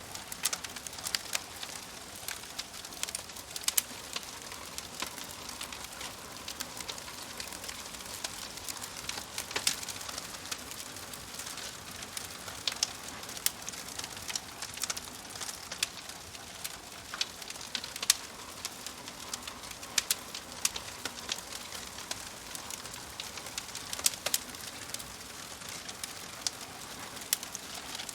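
Wood fire crackling in a fireplace: a steady hiss of burning logs with irregular sharp pops and snaps, a few louder than the rest.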